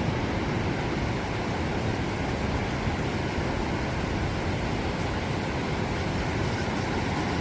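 Ocean surf: a steady, unbroken rush of breaking waves.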